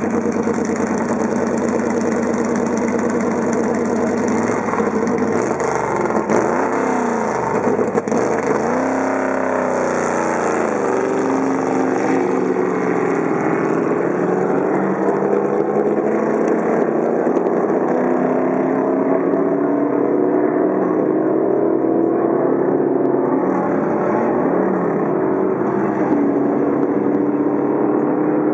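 Ford roadster's stroked and bored, fuel-injected flathead engine running steadily. About four seconds in, its pitch swoops up and down several times as the car pulls away, then climbs slowly and steadily as it accelerates down the course.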